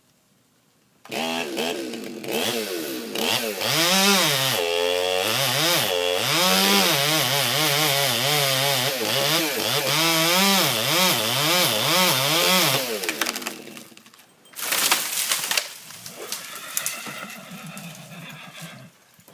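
Chainsaw starting about a second in and cutting, its engine speed rising and falling over and over. It eases off near the end, with a short loud burst, then runs lower.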